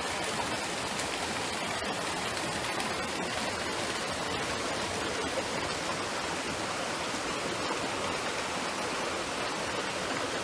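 Mountain stream flowing over rocks: a steady, even wash of running water.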